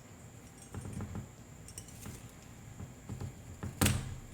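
Light clicks and scraping of hand pliers working on electrical wire, with one sharp, louder snap near the end.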